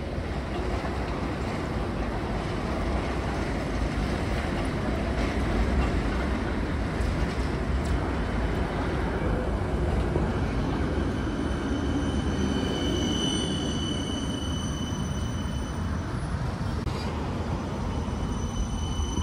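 Articulated low-floor Artic tram running past on street track: a steady rumble of wheels on rail and traction motors, with thin high wheel-squeal tones coming in during the last third.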